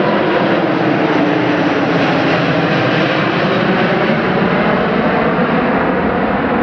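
Airbus A380-842 climbing away after takeoff: the loud, steady roar of its four Rolls-Royce Trent 900 turbofans at takeoff power, heard from the ground as the jet passes overhead.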